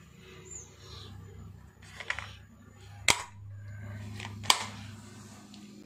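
Three sharp clinks of a steel spoon against a steel bowl, about a second apart, the last loudest, over a low steady hum.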